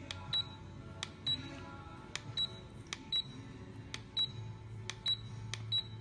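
Button presses on an ultrasonic aroma diffuser's control panel, each a sharp click followed by a short high beep, about seven in a row as the light mode is cycled.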